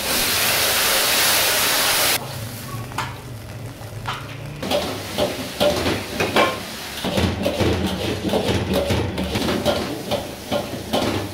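Stir-frying in a wok over a high gas flame. For the first two seconds there is a loud rushing sizzle as the wok flares up, which stops abruptly. After that, a metal ladle and spatula scrape and knock against the wok many times, over steady sizzling, as noodles and vegetables are tossed.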